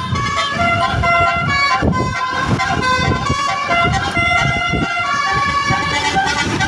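Telolet basuri bus horn, a set of tuned horns sequenced by a Zeta Project controller module, playing a fast melody of held and changing notes over a low pulsing beat.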